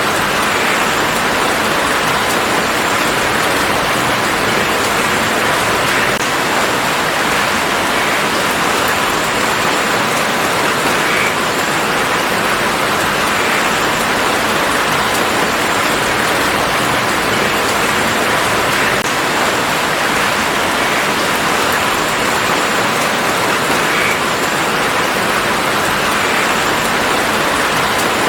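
Steady rain falling in a garden, an even hiss of many drops with faint scattered drips.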